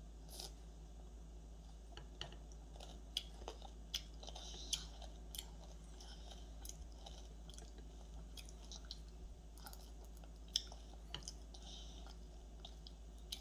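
A toddler chewing spoonfuls of almond cornflakes in milk, with short crunchy sounds and sharp clicks of a spoon against the metal bowl scattered through, the loudest click about ten seconds in.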